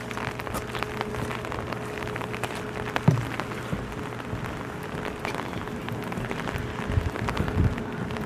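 Outdoor ambience: a steady hiss with many small scattered clicks and crackles, a thump about three seconds in, and wind gusting on the microphone near the end.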